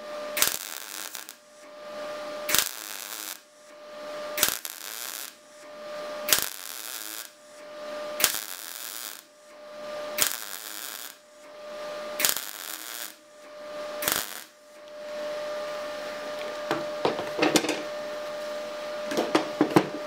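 MIG welder arc crackling in short bursts about every two seconds, eight in all, while 1 mm mild steel sheet is butt-welded in stitches. A steady hum runs between the bursts. The welding stops about fifteen seconds in, leaving the hum and a few sharp clicks near the end.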